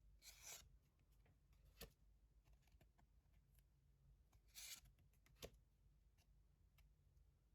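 Near silence with faint handling noise: two short soft swishes and a few small clicks, as of Pokémon trading cards and booster packs being slid and handled.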